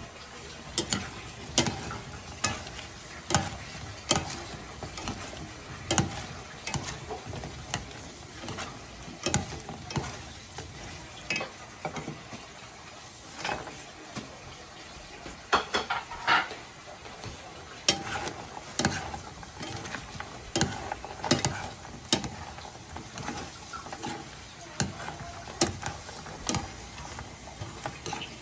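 Sauce sizzling in a frying pan while battered fried shrimp are stirred with chopsticks and a spoon. The utensils click and scrape against the pan at irregular moments, about once or twice a second.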